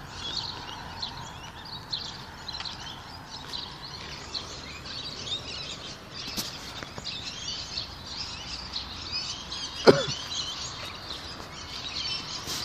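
Many birds chirping and calling together over a steady low background noise, with one sharp knock about ten seconds in.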